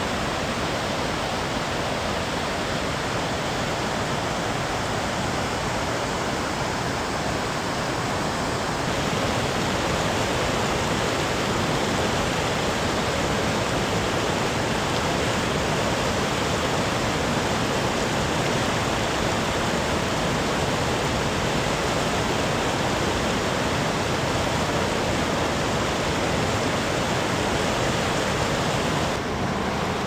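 Whitewater rapids of a mountain river rushing over boulders: a steady, full rush of water that gets slightly louder about nine seconds in.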